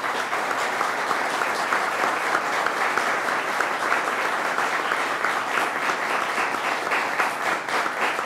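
A room full of people applauding, many hands clapping steadily.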